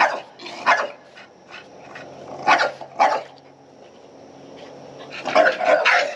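Dog barking in short, sharp barks: a couple near the start, two more about halfway, and a quick run of barks near the end.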